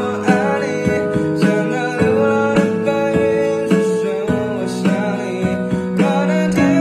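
Background music led by guitar, with plucked notes falling in a steady beat about twice a second.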